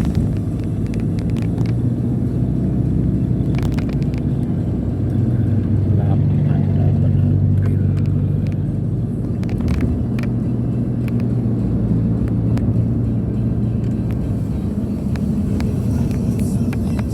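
A motor vehicle on the move, its engine and road noise making a steady low hum, with a few short clicks and knocks.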